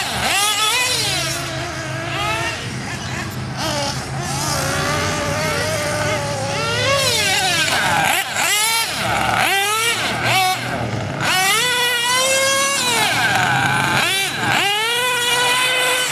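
Two-stroke .21 nitro glow engine of a 1/8-scale Losi RC buggy revving hard and backing off over and over as it races, its whine rising and falling about once a second.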